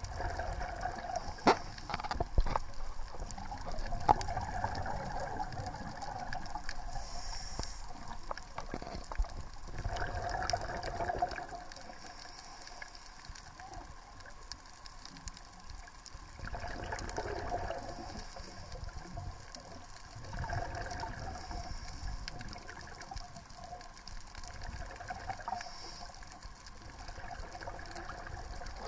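Scuba diver breathing underwater through a regulator: the exhaled bubbles gurgle out in a swell every four to six seconds, with scattered faint clicks between breaths.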